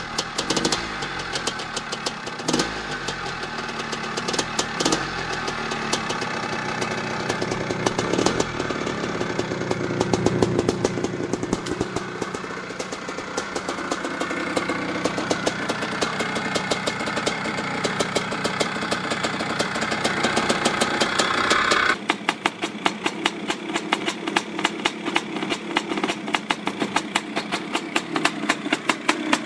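Dirt bike engines running, the pitch rising and falling with the throttle. About 22 seconds in, the sound switches abruptly to a different bike with a thinner, rapid, evenly spaced popping.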